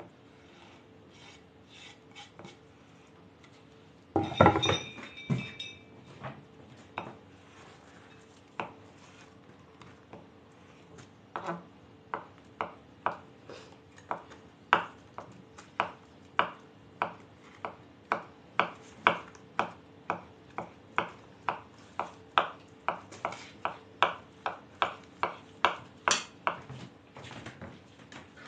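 Kitchen knife chopping boiled potato on a wooden cutting board: steady, evenly spaced strokes about two a second from about eleven seconds in. About four seconds in, a short loud clatter with a metallic ring.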